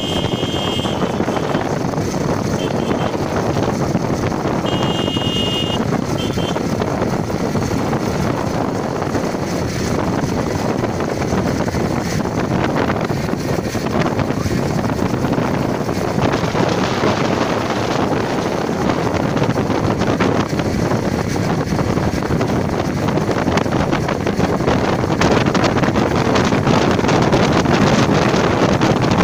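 Wind rushing over the microphone of a rider moving at highway speed, mixed with engine and road noise. It is steady and grows a little louder and brighter in the second half.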